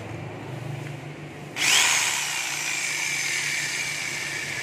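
A 100-volt, 390-watt Makita electric jigsaw switched on about a second and a half in and running with no load, a steady loud motor whine being test-run, after a low hum.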